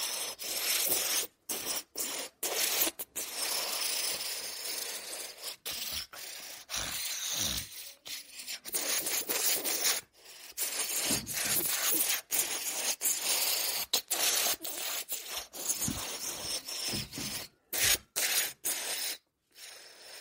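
A rough rubbing, scraping noise that stops and starts abruptly many times over, with a few short low thuds in between.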